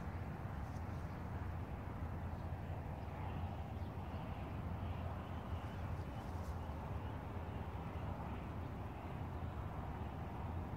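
Steady low outdoor rumble, with faint, short, repeated bird calls in the middle and a single light click.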